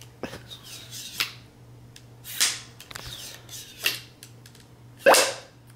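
A toddler making short breathy puffs and hisses with his mouth, four of them about a second apart, the last one the loudest.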